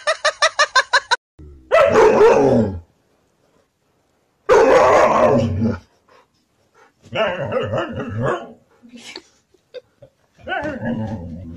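Husky-type dogs vocalizing at each other in four separate bursts of howl-like, whining 'talk', with gaps between them. It opens with about a second of rapid, even pulsing.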